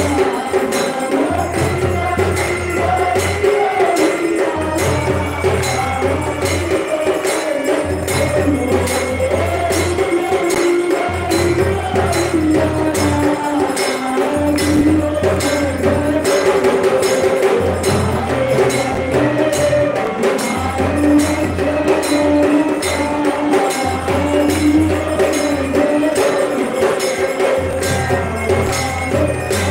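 Hindu temple aarti music: fast jingling metal percussion keeps a steady beat under a wavering melody, with a low drum sounding in stretches of a few seconds.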